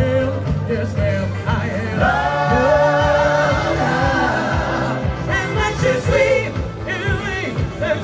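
A group of male voices singing a musical-theatre pop number in harmony into handheld microphones, over an accompaniment with a steady bass line. The voices sing several parallel parts about two to four seconds in.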